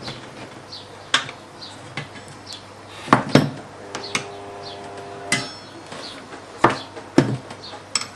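Tyre levers knocking and clinking against a motorcycle wheel rim as the last of a hard-to-fit tyre's bead is levered on. There are about seven sharp knocks, spaced irregularly, and a short metallic ringing a little past the middle.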